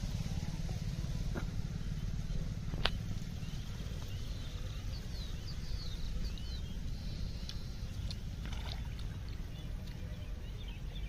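Steady low outdoor rumble, with small birds chirping in short rising and falling notes from about five to nine seconds in, and one sharp click about three seconds in.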